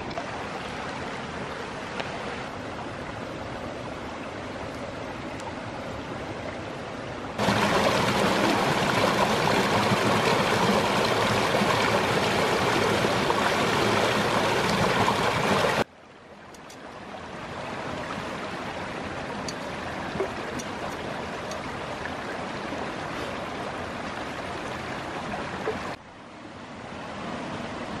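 Mountain stream rushing over rocks as a steady wash of water noise. Through a louder stretch of about eight seconds in the middle, the fast water pours around a lidded cooking pot held in the current. The sound drops suddenly twice and fades back up.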